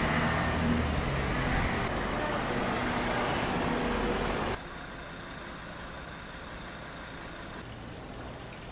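Street traffic: a motor vehicle's engine running loudly close by, with a steady low hum under broad road noise. About four and a half seconds in it cuts off abruptly to a much quieter, even street background.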